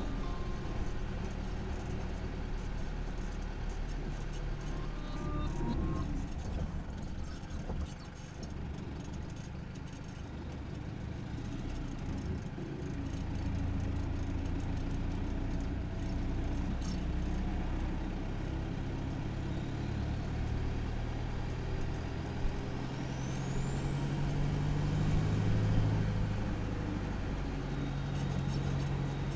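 Isuzu KB300's 3.0-litre four-cylinder turbo-diesel engine and exhaust under way, heard from beneath the pick-up, its note rising and falling with the throttle. Toward the end a high whistle climbs over several seconds as the engine pulls harder, then falls away.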